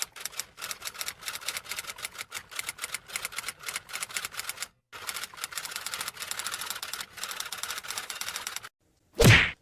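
Typewriter typing sound effect: rapid key clacks in two runs of about four seconds each, split by a brief pause, then one short loud hit near the end.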